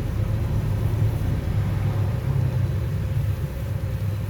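Hot-air rework station's blower running with a steady low rumble.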